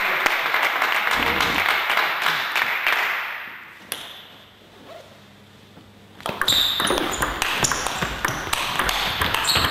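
Table tennis ball clicking off bats and table in a rally that starts about six seconds in, after a short lull. Before the lull there is a few seconds of noise from the crowd in the hall.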